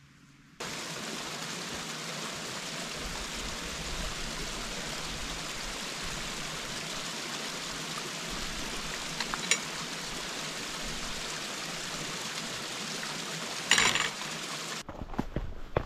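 A mountain stream rushing steadily over rocks, starting sharply about half a second in and cutting off just before the end, with a short louder burst near the end. Footsteps on a path follow in the last second.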